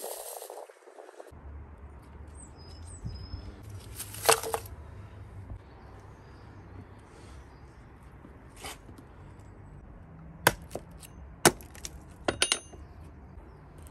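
A hatchet chopping a birch log on a wooden stump, giving sharp knocks, with several strikes close together in the last few seconds. There is also a single loud knock about four seconds in.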